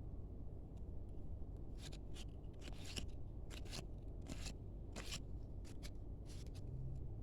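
A run of short, crisp rustling and snipping strokes, about a dozen over four seconds, from the card pack's wrapper and cards being handled and opened.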